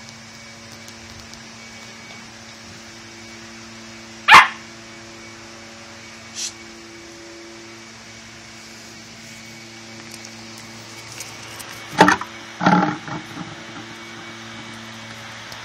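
Pembroke Welsh Corgis barking as they play-wrestle: one sharp bark about four seconds in, then two loud barks close together about twelve seconds in, followed by a few smaller yaps.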